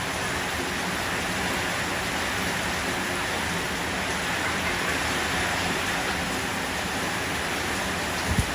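Steady rain falling beside a rushing mountain stream, an even hiss of water. A brief low thump comes near the end.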